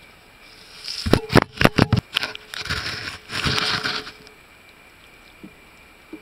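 A skunk and a raccoon scuffling over food on wooden deck boards: a quick run of five or six sharp knocks and thumps, then a couple of seconds of rough scraping and rustling.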